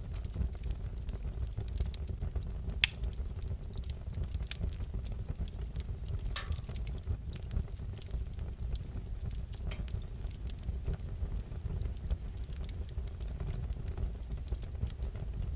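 Wood fire in a fireplace crackling: a steady low rumble with scattered sharp pops and snaps, one louder pop about three seconds in.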